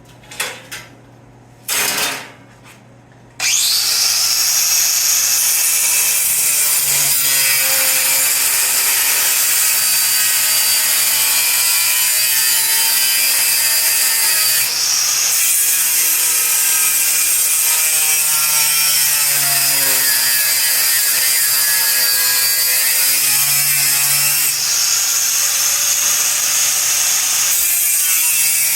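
A couple of clicks, then about three seconds in a power tool with an abrasive cutoff wheel starts cutting sheet steel and runs on without a break, with a loud high hiss and a whine whose pitch shifts as the wheel is loaded.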